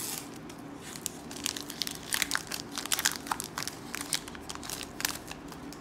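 Foil booster-pack wrapper of a Pokémon card pack crinkling and tearing as it is opened by hand, a run of irregular crackles.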